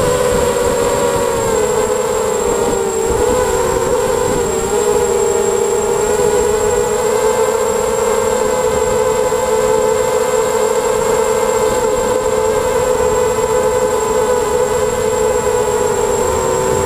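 ZMR250 mini quadcopter's brushless motors and propellers whining steadily in flight, heard from its onboard camera. The pitch wavers slightly, dipping a few seconds in before settling, over a thin high whistle throughout.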